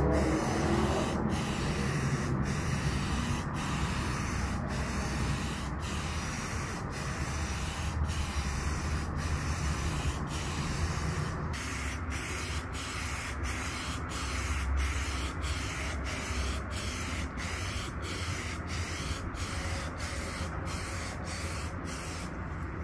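Aerosol spray can of primer hissing as a thin coat goes onto an outboard motor's engine cover. The hiss is broken by brief stops, about one a second at first and about two a second in the second half.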